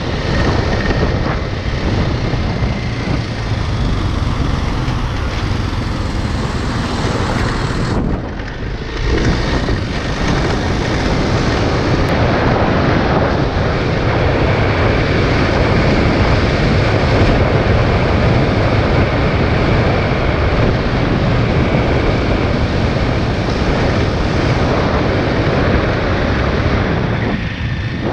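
Motorcycle riding along a road, its engine running under heavy wind rush on a head-mounted camera. The noise drops briefly about eight seconds in and again near the end.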